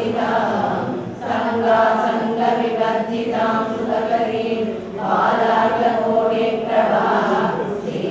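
A group of voices chanting Sanskrit verses together in unison, recited from printed texts, with short breaks for breath about a second in and just before five seconds.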